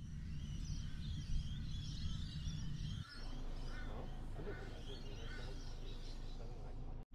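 Birds calling again and again in high, wavering cries over a low, steady rumble. The rumble changes character about three seconds in.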